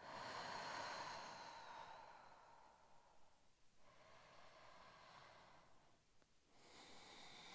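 A woman's slow, quiet breathing: a long breath out in the first few seconds, then two softer breaths, one after the other, timed to a slow arch-and-curl movement.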